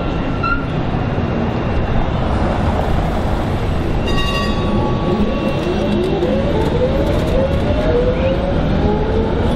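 Amsterdam GVB city tram running past at street level over a steady bed of street noise. About four seconds in comes a short bell ring. Through the second half, overlapping rising whines from the electric traction motors show the tram gathering speed.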